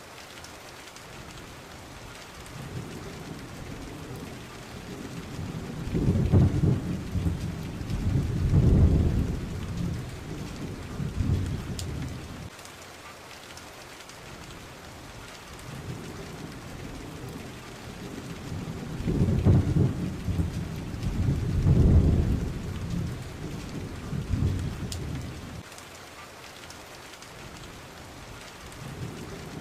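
Steady rain with rolling thunder: a constant hiss of rain, with two long spells of deep rumbling thunder, one starting about six seconds in and one about nineteen seconds in.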